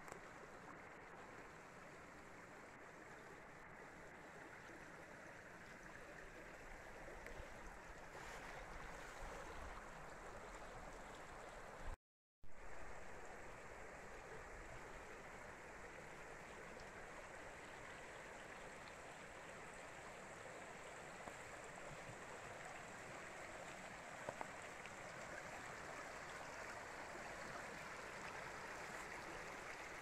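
Shallow, rocky creek running over stones and gravel: a steady, faint rush of water that cuts out for a moment about twelve seconds in.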